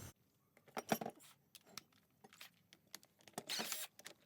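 A few light metallic clicks and clinks of hand tools and engine parts being handled, loudest about a second in and again near the end.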